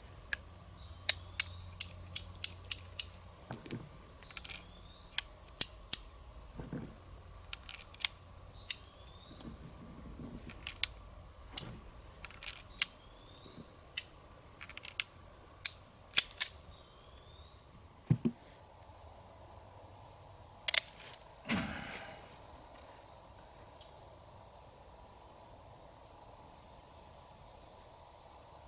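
A turn-of-the-century Colt Single Action Army revolver being loaded: many sharp metallic clicks as the cylinder is turned chamber by chamber and .45 Colt cartridges are pushed in through the loading gate, with a couple of duller knocks. A steady high insect drone sounds throughout.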